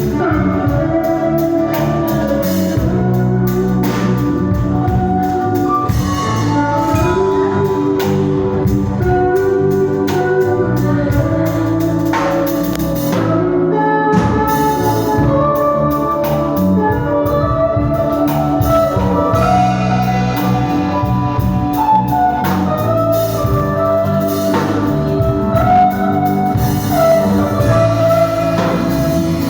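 Band music with no words: a steady drum beat under sustained melody lines and chords.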